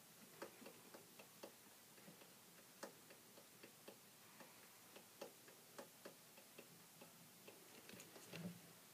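Faint, irregularly spaced light ticks and scrapes of a wooden popsicle stick scratching a heart into scratch-art paper.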